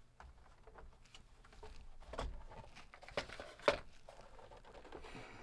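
Handling noises as the disk drive is set on a cardboard box: soft rustling with a few light knocks, the sharpest about two-thirds of the way in.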